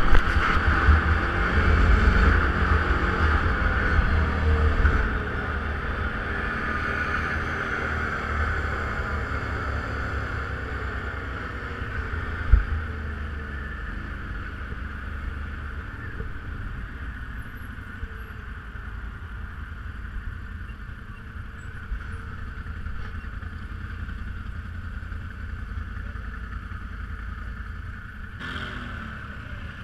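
A BRP all-terrain vehicle's engine runs, loudest in the first few seconds, then settles to a steady lower drone. There is a single knock about twelve seconds in.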